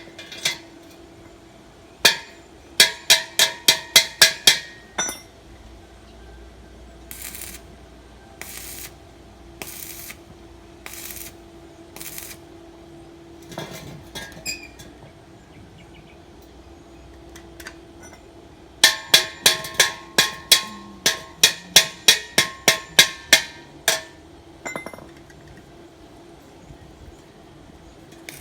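A hammer striking steel in two quick runs of ringing metallic blows, about three to four a second, with a few short scraping rasps between the runs and a faint steady hum underneath.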